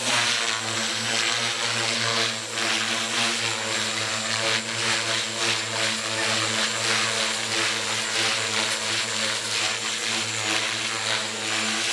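JR Forza 450 electric RC helicopter in flight: the steady whine of its motor and rotor blades, swelling and dipping in loudness as it manoeuvres.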